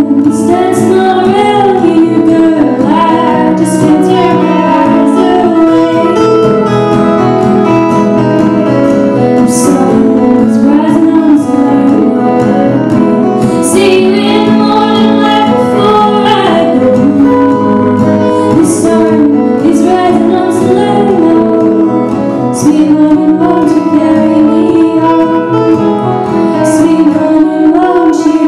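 Live acoustic song: a woman singing a slow melody over acoustic guitar.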